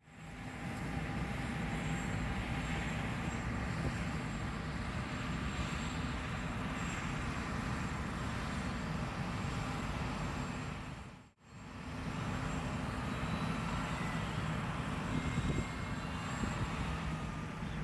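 John Deere S780 combine harvester running steadily while harvesting wheat, a dense mechanical drone. It drops out briefly about eleven seconds in and then comes back.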